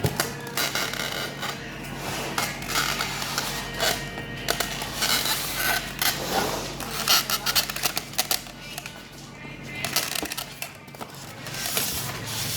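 Music playing in the background, with many short clicks, scrapes and rustles of objects being handled.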